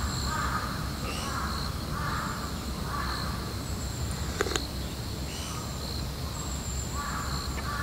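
A crow cawing, a run of harsh calls about a second apart, falling quiet for a few seconds in the middle and starting again near the end.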